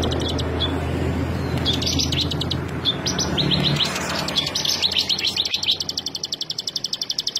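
Bar-winged prinia (ciblek) singing: a fast, rhythmic run of high, sharp notes. The notes come in short bursts at first, then run on without a break from about halfway, with a low hum underneath that fades out in the first half.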